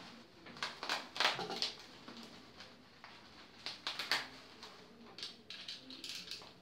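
Bubble-wrap packaging crinkling and rustling in several irregular bursts as it is handled, with a utility knife starting to slit the plastic near the end.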